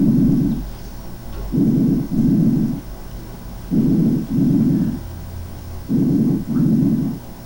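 Vesicular breath sounds of a patient with pulmonary emphysema, heard through a stethoscope: a low rushing noise, about one breath every two seconds. Each breath is a short inspiration followed by a slightly longer expiration. This prolonged expiration, really a shortened inspiration, is the pattern of emphysema (COPD) with hyperinflated lungs.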